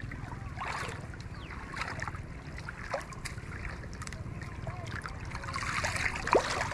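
Water sloshing and splashing, with scattered small clicks and knocks over a steady low rumble; a louder splash comes about six seconds in.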